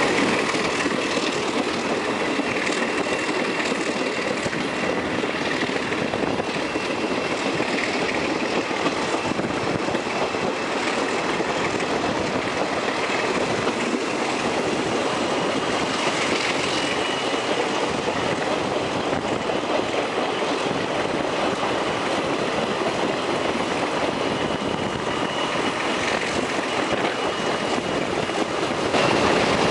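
Stainless-steel Budd-Mafersa passenger car running along the track, heard from an open window: a steady rush of wheel, rail and wind noise with a thin, steady high whine above it.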